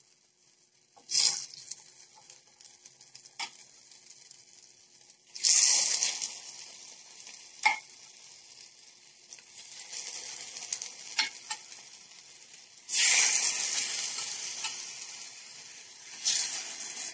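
Marinated chicken tenderloin pieces laid one at a time into hot oil in a frying pan, each setting off a sudden loud sizzle that slowly dies down, about four times. A few light taps sound in between.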